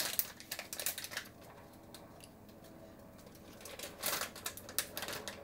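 Plastic bag crinkling and crackling as it is handled and opened, in quick irregular crackles, busiest near the start and again near the end.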